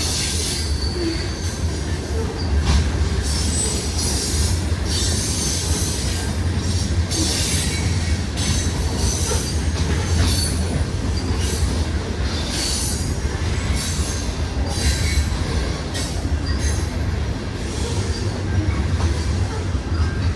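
A CN freight train's cars rolling past, with a steady low rumble of wheels on rail and high-pitched wheel squeal coming and going about once a second.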